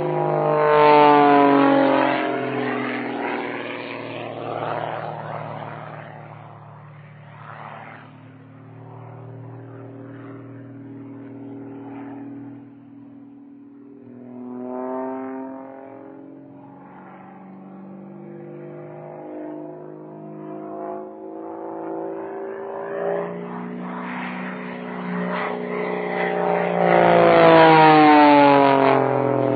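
Propeller plane flying aerobatics, in an old recording: the engine's pitch swings up and down as it manoeuvres. It passes close and loud twice, about a second in and near the end, the pitch falling each time, and runs quieter and farther off in between.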